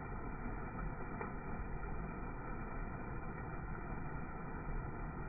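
Flood-swollen creek water pouring over a small rock-ledge waterfall: a steady rushing. The audio is slowed down with the slow-motion picture, so it sounds low and muffled, with no high end.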